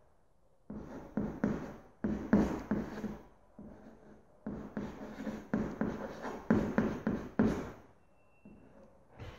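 Chalk writing on a chalkboard: runs of scratchy strokes and taps, with short pauses between them.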